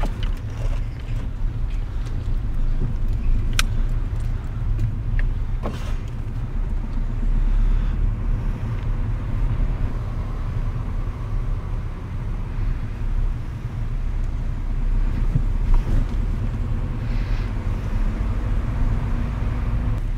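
Steady road and engine rumble inside a moving car's cabin, with a couple of short clicks a few seconds in.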